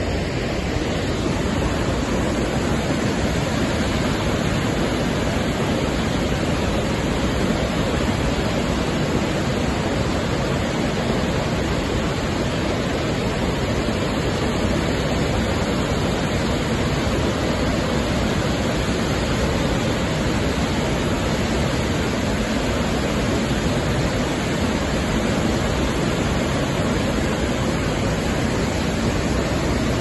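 Savica waterfall rushing steadily: a loud, even wash of falling water that does not change.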